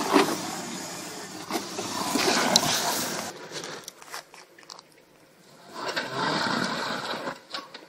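Off-road tyres crunching and scraping over rocks and dry leaves on a trail, in two stretches with a quieter gap between.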